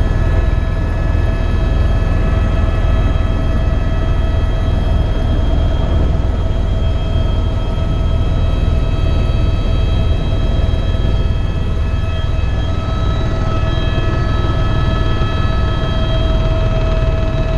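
Eurocopter EC130 EcoStar helicopter in flight: a steady, loud rotor and turbine drone, a deep rumble under a constant whine of fixed tones.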